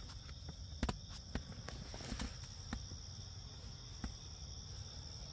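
Steady high-pitched insect chorus drones on without a break, with a few soft clicks scattered through it.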